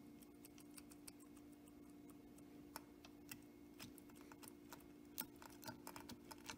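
Very faint, irregular metallic clicking from a 1926 Ford Model T differential and its roller bearings as the axle shaft is turned by hand, the clicks coming closer together near the end. A steady low hum runs underneath.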